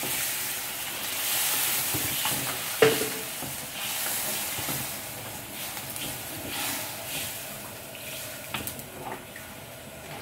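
Sausage and chili paste sizzling in a wok as water is added, stirred with a wooden spatula. The sizzle is loudest for the first few seconds and then dies down as the liquid cools the pan, with a sharp knock of the spatula against the wok about three seconds in.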